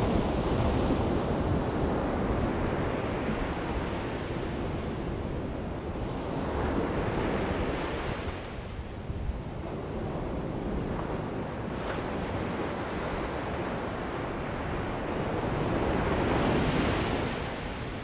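Sea surf breaking and washing up a sandy beach, a steady rushing that swells with each wave, loudest near the start, about seven seconds in and again near the end.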